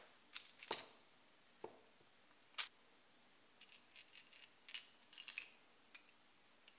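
Scattered light metallic clicks and clinks of small parts and tools being handled while a bike's fork and headset are fitted; some carry a short high ring. They are sparse at first, come closer together from about three and a half seconds in, and the loudest is about five seconds in.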